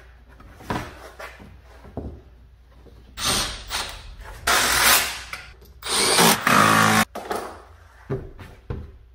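Cordless power driver run in three short bursts, driving fasteners to secure a car's plastic underbody panel.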